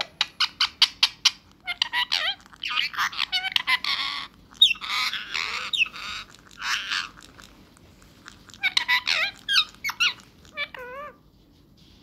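Indian ringneck parrot (rose-ringed parakeet) calling: a quick run of short squeaks, then bursts of squawking chatter that slides up and down in pitch, and near the end a run of wavering chirps.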